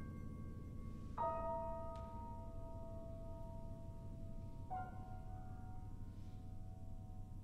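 Soft bell-like struck notes in a quiet passage of chamber music: two strokes, about a second in and near five seconds, each left to ring and slowly fade.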